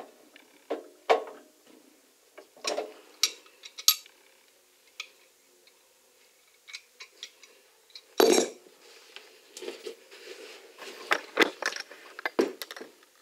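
Scattered clinks, taps and knocks of hard objects being handled around a sink drain connection under a sink while it is tightened. The loudest knock comes about eight seconds in, with a quick run of taps near the end.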